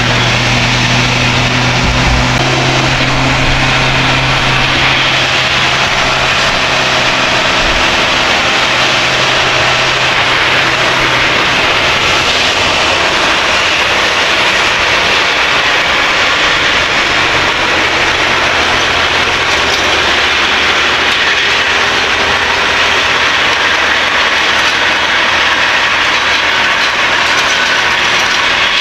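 Case Quadtrac 620 tracked tractor working under load: a steady engine drone with the dense clatter of its track undercarriage and the towed cultivator. The engine's low hum is strongest in the first dozen seconds, then sinks behind the clatter.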